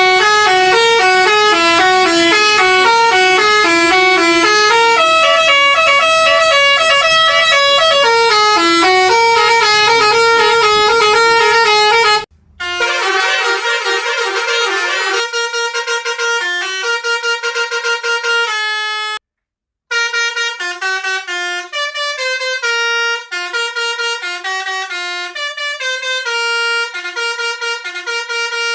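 Basuri telolet bus horn, a multi-tone horn playing a quick melody of short stepped notes. A low rumble runs under the first half. The sound cuts out briefly about twelve seconds in and goes silent for about half a second near nineteen seconds.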